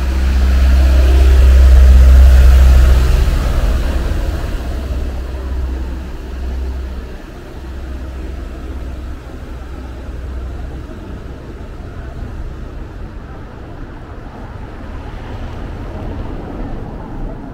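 A motor vehicle's engine passing close by with a deep, low note, loudest about two seconds in, then fading away over the next several seconds into quieter street background.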